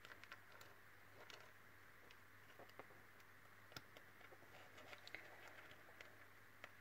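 Faint, irregular small ticks and clicks of thin craft wire being bent and handled by fingers, over a low steady hum.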